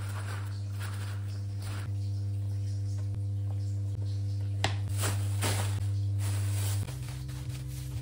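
Background music carried by a steady low sustained note that steps up in pitch near the end. Over it, short rustles and a sharp click as paper towel, plastic bags and a plastic container are handled.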